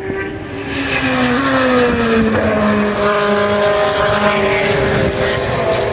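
Endurance race cars passing at high speed. The engine note gets louder under a second in, then falls in pitch over the next couple of seconds and carries on at a steadier pitch.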